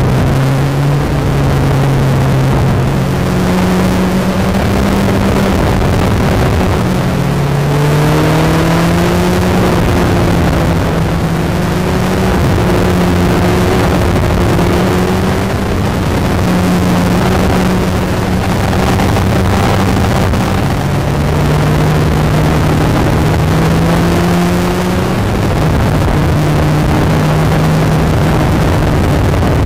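Motorcycle engine heard from on board while riding through curves, its pitch holding steady and then stepping or gliding up and down every few seconds with throttle and gear changes, over a constant rush of wind.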